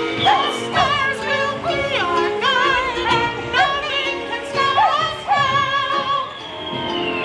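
Music with operatic-style singing voices, the notes wavering with strong vibrato, ending on a long falling glide.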